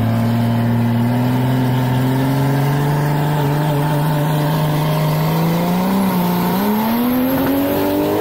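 Drag racing car's engine pulling hard under full throttle, its pitch climbing steadily, with a gear shift about six and a half seconds in, after which it climbs again.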